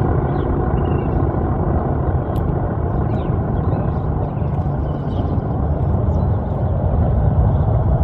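ACA Cyclone-125 tornado siren briefly powered for a growl test, its 50 HP motor spinning the rotor to give a low, rumbling growl that comes in suddenly rather than the full rising wail. The short run checks that the siren's motor works.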